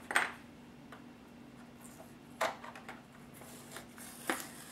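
A few small sharp taps and clicks of hand work on a hobby bench: tweezers put down on a cutting mat, and fingers pressing a decal and masking tape onto a plastic model truck body. The loudest tap comes right at the start, others about two and a half and four seconds in, over a faint steady hum.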